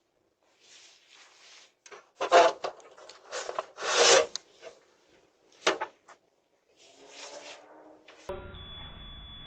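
Irregular bursts of scraping and rubbing noise on a doorbell camera's microphone, loudest about two and four seconds in. Near the end it cuts to a different recording with a steady low hum.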